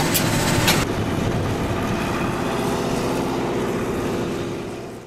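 Twin-engine turboprop airliner's engines running close by with the propellers turning, a steady rushing noise with a few clicks in the first second. The sound fades out near the end.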